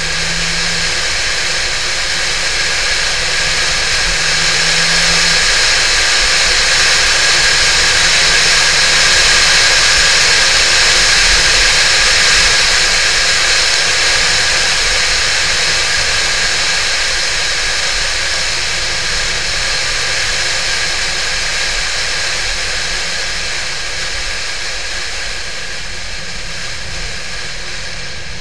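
Wind and road rush from a Porsche 911 (996) driving at speed, with the car's flat-six engine faint underneath. The rush swells toward the middle and eases a little near the end.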